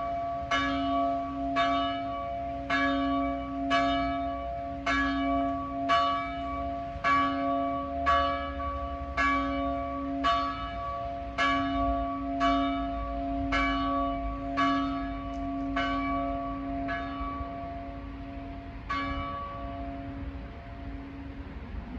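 The large church bell of St. Anthony's, cast in 1948 by the Silesian Bell Foundry, swinging and ringing with strokes about twice a second over its steady hum note. The strokes stop about 17 seconds in, with one last stroke near 19 seconds, as the bell comes to rest and the ringing fades.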